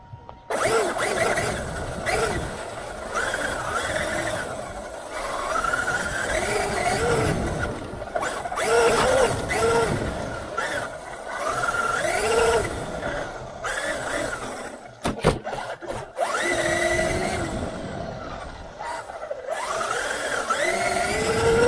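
Traxxas Unlimited Desert Racer RC truck setting off about half a second in and driving over grass, heard from a camera strapped to the truck. Its brushless electric motor whines, rising and falling with the throttle, over a rough rumble from the drivetrain and tyres, with a few sharp knocks about fifteen seconds in.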